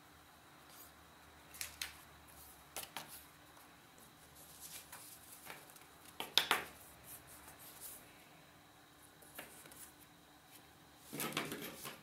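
Sheets of paper and card being handled: scattered crisp rustles and snaps as paper is picked up, bent and set down, the loudest about six seconds in, and a longer rustle near the end.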